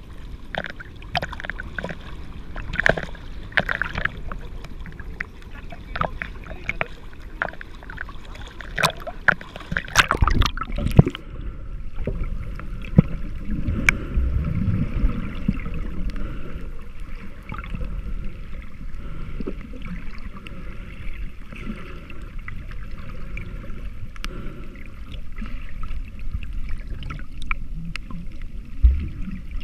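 Water splashing and sloshing against a camera held at the waterline, with scattered sharp slaps. About eleven seconds in the camera goes under, and the sound turns to a dull, muffled underwater wash with faint gurgling.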